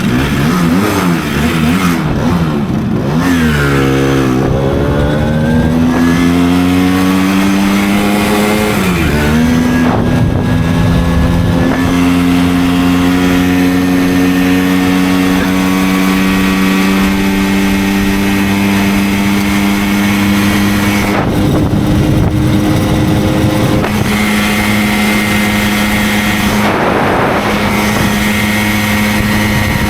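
Simson moped's 50 cc single-cylinder two-stroke engine under way. Its revs rise and fall quickly for the first few seconds, then climb with a gear change about nine seconds in, and then hold a nearly steady pitch while cruising.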